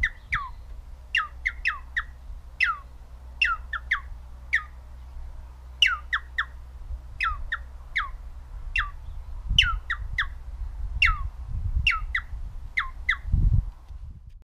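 Human finger whistling imitating the calls of a Eurasian jackdaw: short, sharp notes that each drop steeply in pitch, given singly or in quick twos and threes about two dozen times. A low rumble runs underneath and swells near the end.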